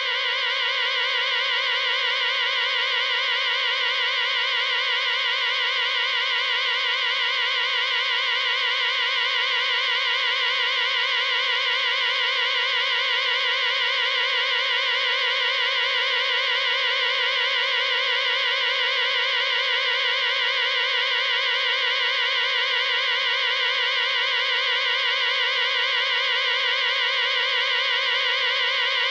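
Electronic warble alarm: a loud, buzzy tone wobbling rapidly up and down in pitch at an even rate, without a break.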